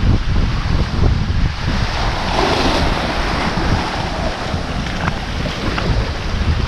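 Wind buffeting the microphone over small waves washing up onto a sandy shore, with one wave's wash loudest about two seconds in.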